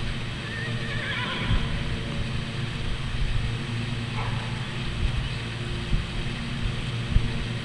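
A horse whinnies once, a quavering call about a second in, over a steady low rumble.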